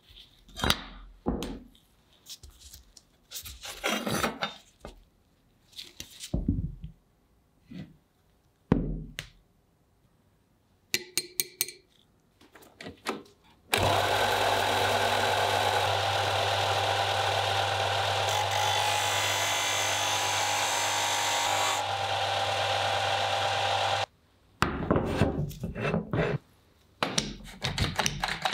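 Cocraft bench disc sander running for about ten seconds with a workpiece pressed against the sanding disc: a steady hum under a grinding hiss, stopping abruptly. Before it, scattered knocks and clatter of cast-iron parts handled on a wooden bench. After it, bursts of clicking as a one-handed bar clamp is squeezed shut.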